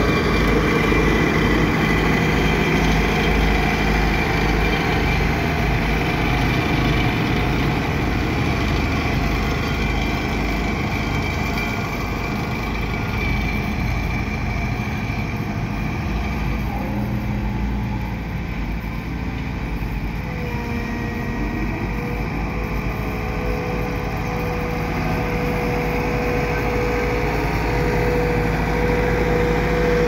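Diesel engine of a steel-drum asphalt road roller running steadily, with a low pulsing early on and a steady engine tone that steps up slightly in pitch about two-thirds of the way through.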